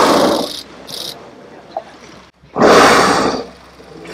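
Humpback whales blowing at the surface: a loud, breathy whoosh of exhalation at the start that fades within about half a second, then another blow about two and a half seconds in that lasts about a second.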